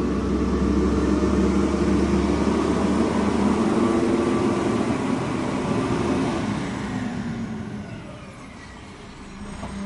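Steady engine noise of a running vehicle with a low hum, fading away over the last few seconds.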